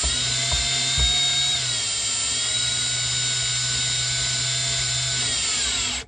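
Cordless drill/driver running steadily, driving the screw of an old-work electrical box so its wings pull tight against the wall panel. Its whine sags a little in pitch about a second and a half in and again near the end as the screw tightens, then stops suddenly.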